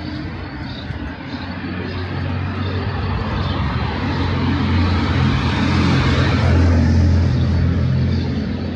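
A motor vehicle's engine running with a steady low hum as the vehicle drives past, getting louder to a peak about two-thirds of the way through and then fading.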